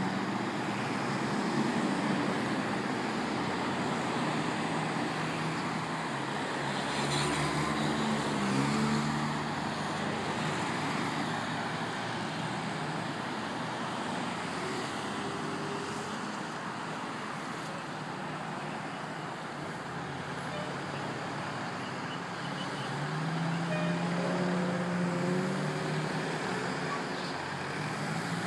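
Steady multi-lane parkway traffic with cars passing close by one after another: tyre noise and engine hum that swell and fade as each car goes past.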